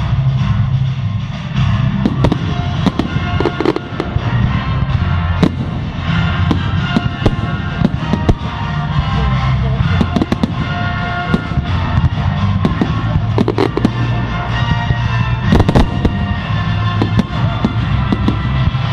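Fireworks display: sharp bangs and crackles going off repeatedly, over loud music with heavy bass.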